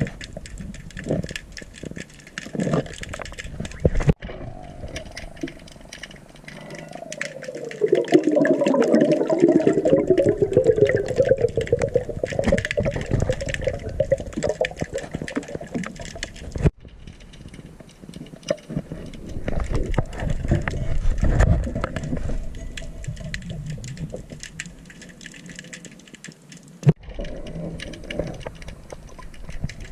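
Underwater noise around a diver: bubbling and rushing from the diver's breathing, loudest in two long stretches, over constant fine clicking and crackling. The sound breaks off abruptly three times.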